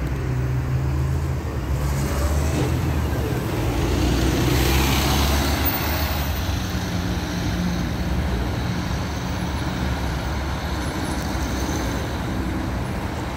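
LiAZ-6213.22 articulated diesel bus under way, heard from inside: a steady low engine hum with road noise. The noise swells about four to five seconds in, then settles.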